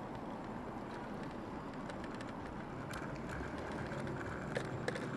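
Road and wind noise from riding a small electric scooter along a street: a steady rushing hiss with tyre rumble and a few light clicks and rattles from about three seconds in.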